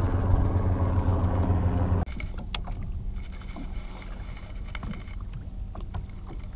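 Electric trolling motor running with a steady hum that cuts off abruptly about two seconds in. After that, only a low rumble of water and wind is left, with a few sharp clicks as a cast is made with a baitcasting reel.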